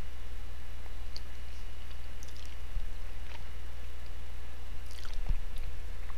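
Low steady electrical hum with a faint high whine, and a few soft scattered clicks; no speech.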